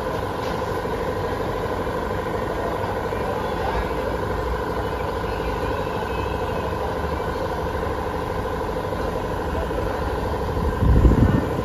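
Mumbai suburban electric local train standing at the platform, its onboard equipment giving a steady hum with a fixed whine. A brief low rumble comes near the end.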